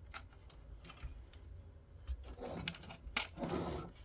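Light clicks, taps and rustling from hands working on an opened computer subwoofer's parts and wiring, with a sharper click a little after three seconds in.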